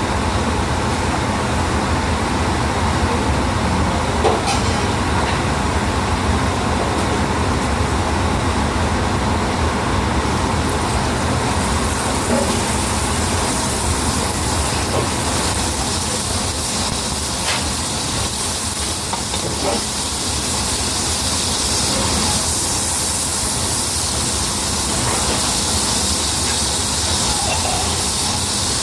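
Escalopes sizzling in a hot frying pan over a steady low hum, the sizzle growing stronger about a third of the way in, with a few light clicks.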